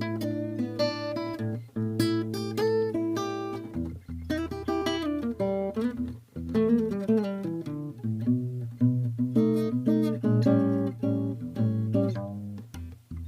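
1968 Yamaha S-70 acoustic guitar being played solo, with picked and strummed chords over bass notes.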